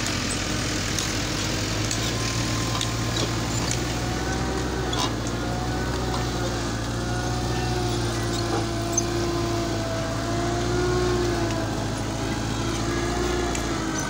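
Diesel engine of a Caterpillar 953 track loader running steadily under load as it pushes into a pile of earth, with a wavering whine over the engine and occasional short clanks.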